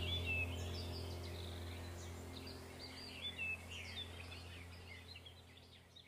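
Small birds chirping and twittering in short, high, quick notes over a steady low hum, the whole sound fading away toward the end.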